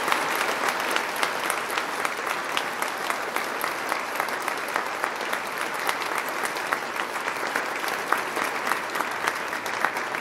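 A large audience applauding steadily, with many individual claps standing out, easing slightly toward the end.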